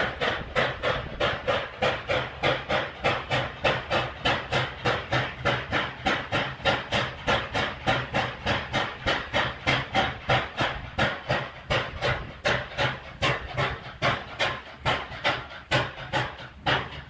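Steam locomotive puffing in an even rhythm, about three puffs a second.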